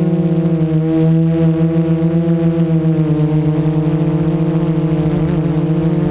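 Hoverthings FLIP FPV Mini-350 quadcopter's brushless motors and propellers running at a hover: a loud steady buzzing hum whose pitch wavers slightly and dips a little in the middle.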